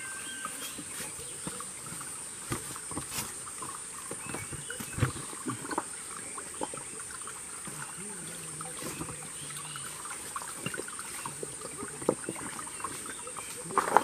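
Footsteps crunching and knocking over loose stones and dry leaves, with a steady high-pitched insect drone behind them.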